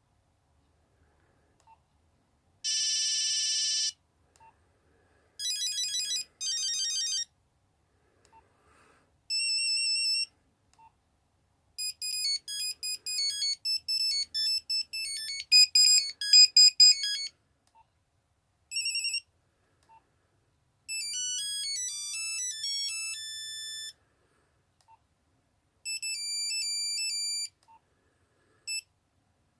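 Nokia 3210 mobile phone playing a string of short monophonic ringtone snippets, one after another, each a beeping tune lasting from a blip to about five seconds, cut off and followed by a pause. Faint clicks come in the gaps between tunes.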